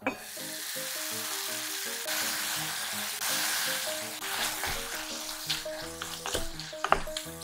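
Food sizzling in a cast-iron pot. The sizzle starts suddenly as the lid comes off after steam-cooking, stays loud for a few seconds, then eases as seasoning is poured in and stirred with a wooden spatula, which gives a couple of sharp knocks in the second half. Light background music with a picked melody plays throughout.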